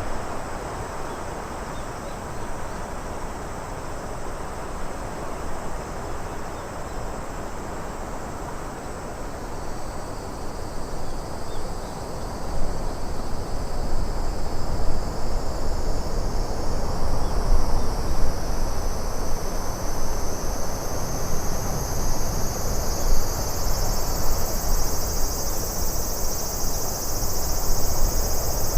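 Steady rushing nature ambience of wind and water. A high, shrill chorus of crickets fades in about a third of the way through and grows louder.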